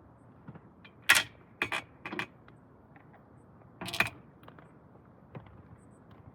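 A few sharp clicks and clatters: a loud one about a second in, two more quickly after, another near four seconds, with fainter ticks between.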